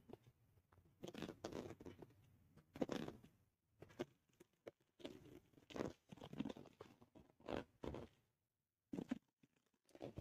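Kitten pawing at an orange plastic mesh basket: faint, irregular bouts of scratching, scraping and light taps on the plastic, with short pauses between them.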